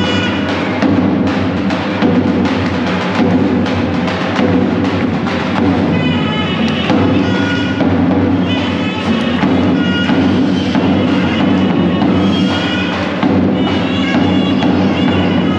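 Loud dance music: a steady drum beat under a high melody of short notes.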